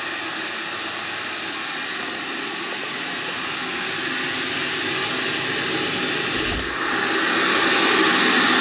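Hair dryer running steadily, drying wet boots. It is muffled at first and becomes louder and brighter about seven seconds in, as the bathroom door opens onto it.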